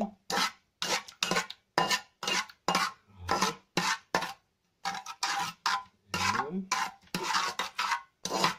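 A spatula scraping back and forth across the bottom of a pot, stirring coconut milk and sugar as it cooks. The strokes come about two a second, with a short pause around the middle.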